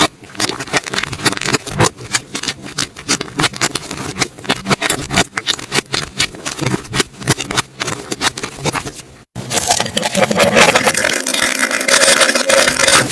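Slime being squished and pulled, a quick irregular run of small sticky pops and clicks. After a short break about nine seconds in, a denser, louder crackling squish takes over.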